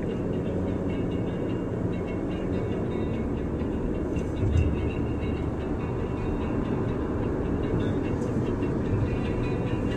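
Cabin noise of a moving Toyota Land Cruiser: a steady low rumble of engine and tyres on the road, with a single thump about four and a half seconds in.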